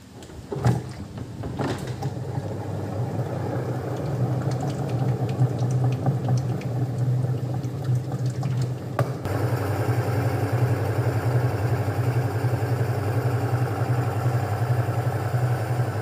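Sharp top-loading washing machine's motor running on the spin cycle: a steady hum that grows louder over the first few seconds, with two clicks near the start. The machine will not spin-dry; the pulsator turns in place of the drum, a fault traced to the gearbox.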